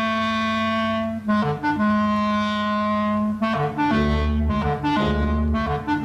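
Orchestral cartoon score: a woodwind plays a piping melody for the cat's pipe, long held notes at first, then shorter notes over a bass line that comes in about four seconds in.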